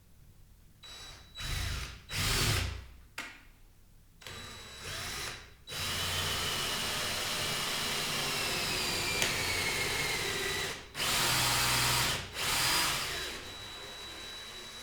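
Electric power drill run in short bursts, then held on for about five seconds with its whine slowly dropping in pitch, then two more short bursts.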